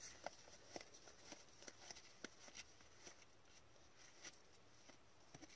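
Faint, scattered ticks and slides of Upper Deck hockey cards being flipped through one at a time in the hands, a card every fraction of a second.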